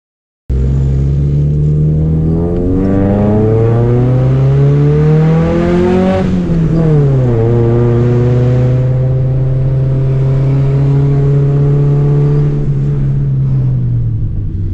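Honda Civic Nouva's four-cylinder engine heard from inside the cabin, revving up under load for about five seconds. About six seconds in the revs fall quickly, then the engine holds a steady pull in second gear before easing off slightly near the end.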